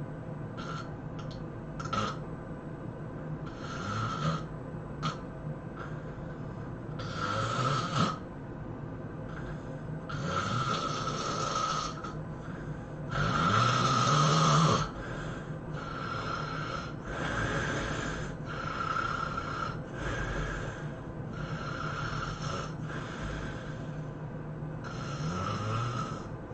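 A person snoring heavily in sleep: about a dozen loud, harsh snoring breaths at irregular spacing, some with a low rising rumble, the loudest about halfway through.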